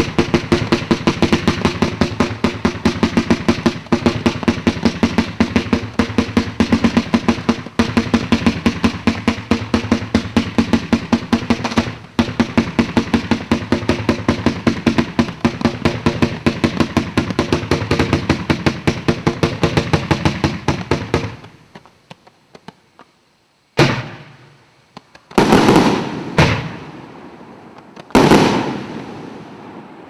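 A 150-shot consumer firework cake firing in rapid succession, a steady stream of sharp shots several a second for about twenty seconds, then stopping. A few single, louder bangs follow near the end, each trailing off.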